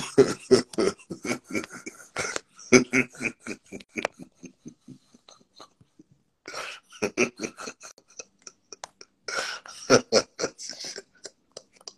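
A man laughing hard in rapid, breathy bursts, stopping for about a second and a half midway, then laughing again.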